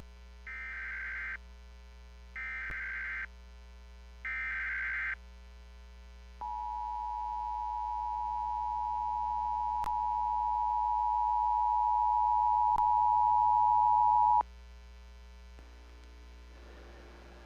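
Emergency Alert System activation on AM radio: three short, raspy bursts of the digital alert header, then the long steady attention tone, which grows gradually louder for about eight seconds and cuts off abruptly.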